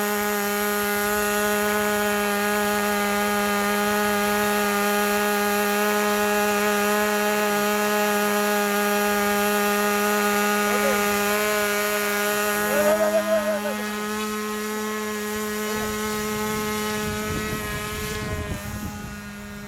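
Small model-airplane engine and propeller on a homemade RC plane running at one steady, unchanging speed before a hand launch, at a throttle setting the builder suspects was too low for takeoff. A short warbling sound joins it about two-thirds of the way through, and the engine tone stops near the end.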